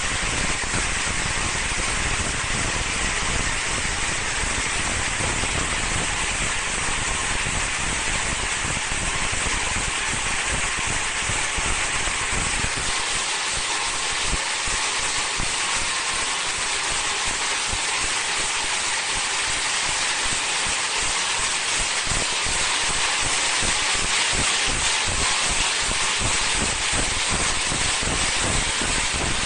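High-speed film slitting and rewinding machine running: a steady hiss of plastic film travelling over the rollers and winding onto the rewind shafts. A low rumble underneath drops away about halfway through.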